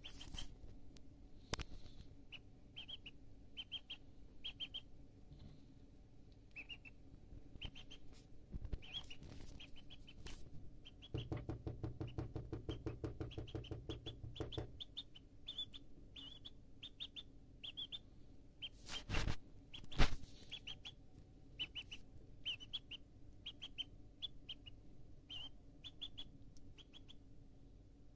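Duckling peeping over and over, short high peeps, with scattered taps of its bill on the countertop as it pecks at tomato. A fast rattling run of clicks comes about midway, and two louder knocks come about two-thirds of the way through.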